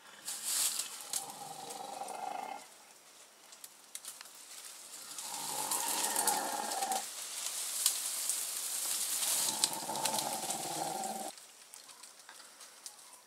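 Leafy tree branches being pulled down and torn: three bouts of thrashing, rustling leaves with creaking wood, each lasting about two seconds.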